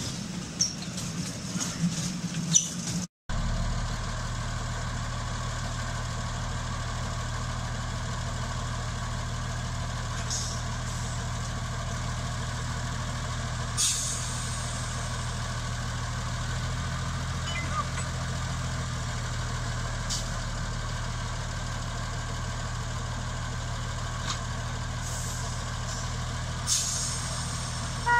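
Mk48 narrow-gauge diesel locomotive idling at a standstill: a steady low engine note with a slight change about halfway through and a few short hisses of air, the clearest near the middle and near the end. It is preceded by about three seconds of clicking and rattling from a miniature railway train, cut off by a brief silence.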